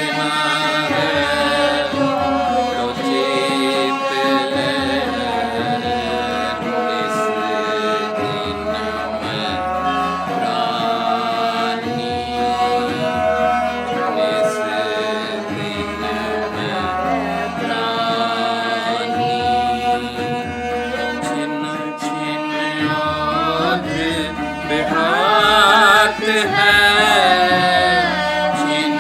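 Indian classical music in Raag Tilang Kafi: a melody of held and gliding notes over a steady, evenly repeating low beat, growing a little louder near the end.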